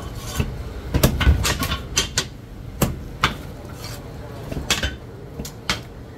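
Heavy Chinese cleaver chopping crispy roast pork on a thick wooden chopping block: a series of irregular sharp knocks, with a quick cluster about a second in.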